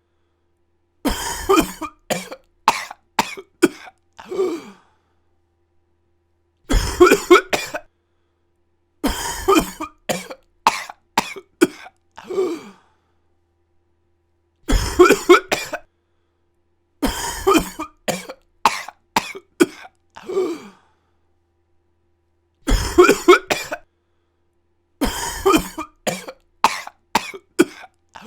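A person coughing in repeated fits of several sharp coughs each, with silent gaps between the fits. The pattern of short and long fits repeats about every eight seconds.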